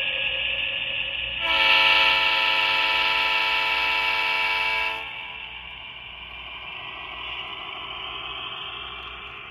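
HO-scale Atlas EMD SDP35 model locomotive's Quantum Sound decoder playing a diesel engine running, with one long horn blast starting about a second and a half in and lasting about three and a half seconds; after it the engine sound carries on more quietly.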